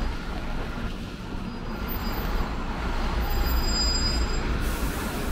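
Steady low rumble of city background noise, with faint, thin high-pitched squeals through the middle of it.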